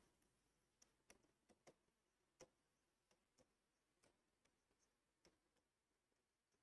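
Near silence, with about eight faint, irregular clicks of a pen tapping and stroking across a writing board as words are written.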